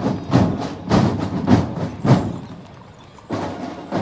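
Marching drums beating a steady march pulse, a sharp stroke about every 0.6 seconds; the beat drops out a little after two seconds in and picks up again about a second later.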